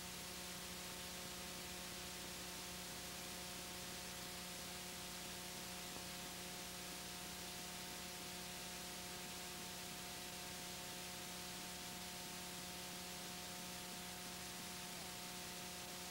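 Steady hiss with a low electrical hum and several faint steady tones above it: the noise floor of a blank recording, with no other sound.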